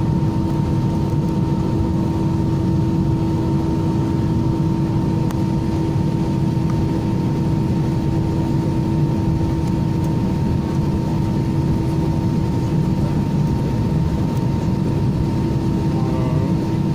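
Airliner cabin noise while taxiing after landing, heard from a window seat: the jet engines at idle give a steady low drone with a steady hum and a fainter whine above it.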